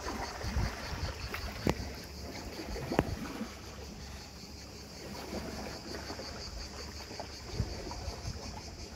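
Seawater washing gently among shoreline rocks, with wind buffeting the microphone in a low rumble. A steady, pulsing high hiss sits above it, and there are a couple of sharp clicks about two and three seconds in.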